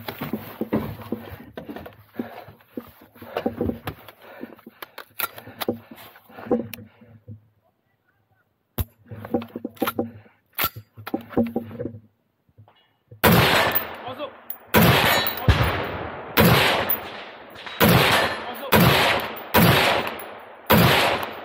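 Scattered clicks and knocks, then, from about two-thirds of the way in, a steady string of about ten loud gunshots fired roughly one every three-quarters of a second, each with a short echoing tail.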